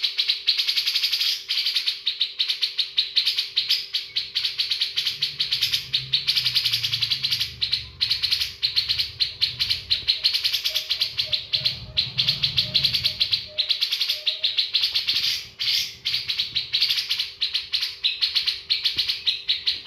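Caged cucak jenggot, a bulbul, singing a long run of fast, dense chattering notes with only brief pauses, its song filled with learned 'isian' phrases copied from other birds.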